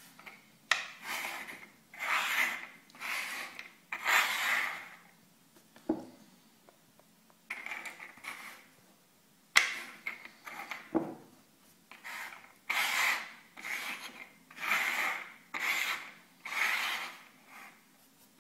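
Rasping scratch or rub strokes, repeated in uneven runs, each lasting under a second.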